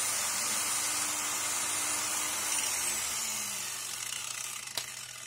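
Angle grinder mounted over a small lathe, its disc grinding the spiral flight of a metal extruder screw as the chuck turns. About halfway through the machines are switched off: the high whine falls in pitch and the sound fades as they spin down. One sharp click about five seconds in.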